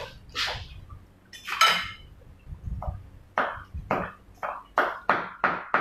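Kitchen knife slicing shallots on a cutting board by hand: an even run of sharp chopping strokes, about three a second, starting about halfway through. Before it, one louder, sharp sound about a second and a half in.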